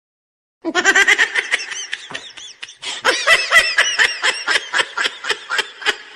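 High-pitched laughter in quick rhythmic bursts, starting just over half a second in, with a short break near three seconds in before it picks up again.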